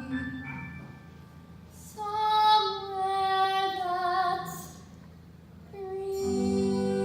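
A woman singing a slow, held phrase with a wavering pitch over soft musical accompaniment. The voice stops and the accompaniment swells near the end.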